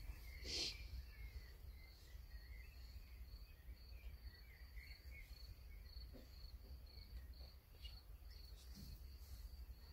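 Near silence, with a faint, high chirping that repeats evenly and a low steady rumble.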